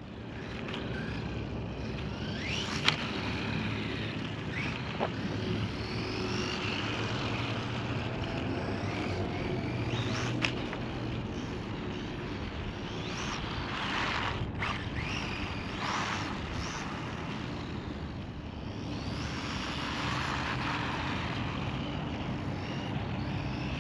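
Maverick DOHA RC truck with a Hobbywing 2435 4500KV brushless motor, driven around on asphalt on a 2S battery: the motor's whine rises and falls in pitch as the throttle changes, over steady tyre and outdoor noise. Now and then there is a sharp click.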